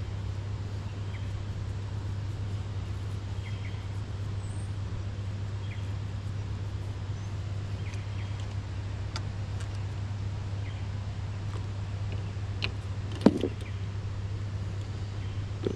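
Steady low mechanical hum, with a few faint high chirps. One sharp click about thirteen seconds in.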